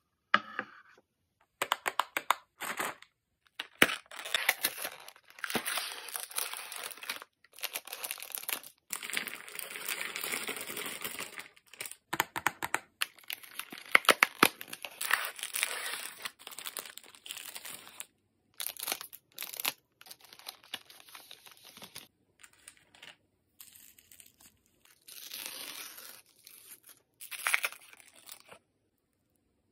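Sweet packaging being opened by hand: the cardboard tab of a Pocky chocolate-stick box torn open and the wrapper of a hazelnut wafer pack crinkled and pulled apart. The tearing and crinkling come in irregular bursts with sharp clicks and short silent pauses between them.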